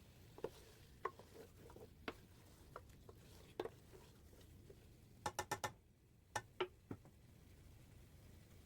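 Light clicks and taps scattered over a quiet background. Most come singly, with a quick run of four about five seconds in and a few more shortly after.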